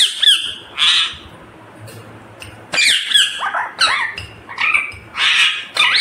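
Indian ringneck parrot squawking and giving short chirpy calls close to the microphone: a quick cluster at first, then, after a pause of about a second and a half, a rapid run of calls.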